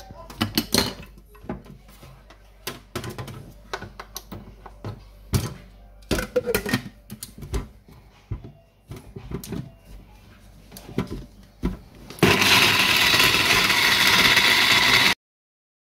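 Scattered knocks and clatter as the blender jar full of boiled groundnuts is handled and its lid fitted. About twelve seconds in, an electric countertop blender starts and runs steadily at full speed, grinding the groundnuts into a paste, then cuts off abruptly after about three seconds.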